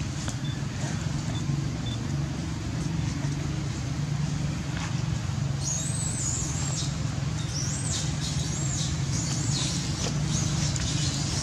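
A steady low engine hum runs throughout, like passing traffic. From about halfway through, a young long-tailed macaque gives a run of about seven high, arching squealing cries: one longer cry, then short ones in quick succession.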